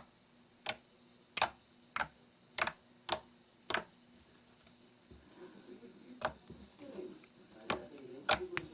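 Homemade slime being pressed and squeezed by hand, giving sharp clicking pops as trapped air bursts out, about every half second for the first four seconds and a few more near the end.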